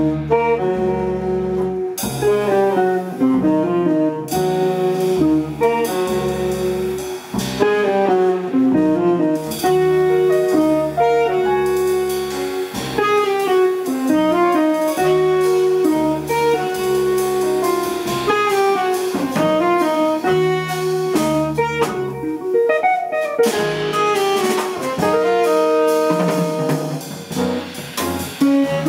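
Small jazz band playing live, with a saxophone carrying the melody over piano, double bass, electric guitar and drum kit.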